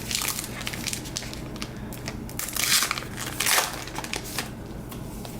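Crinkling plastic wrapper of a pack of trading cards being torn open and handled, in a few short crackly bursts.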